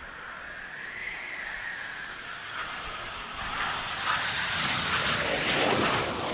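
A fixed-wing aircraft's engines growing louder as it approaches, peaking near the end, with a high whine heard over the engine noise in the first seconds.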